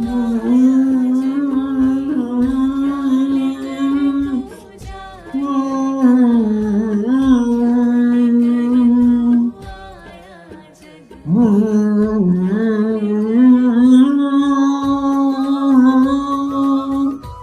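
A Hindi devotional bhajan sung by one voice in long held notes, with two short breaks for breath.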